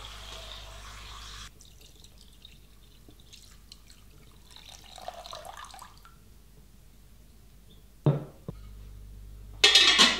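Water running briefly, then pouring and dripping as a pot of meat is filled with cold water. There is a thud about eight seconds in and a loud clatter near the end.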